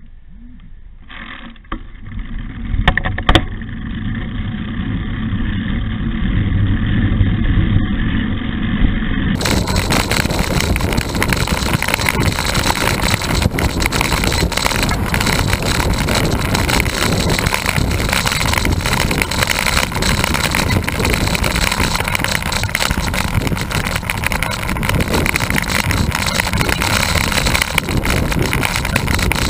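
Wind rushing over a road bike's handlebar-mounted camera microphone, with tyre and road noise, while riding. Near the start it is quieter with two sharp clicks about three seconds in; about nine seconds in it turns abruptly fuller and louder.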